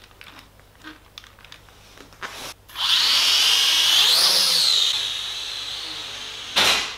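Small toy-frame quadcopter's motors and propellers spinning up with a high whine about three seconds in. The pitch rises briefly as the throttle goes up, then settles lower and dies away. Light handling clicks come before it, and a sharp knock comes near the end.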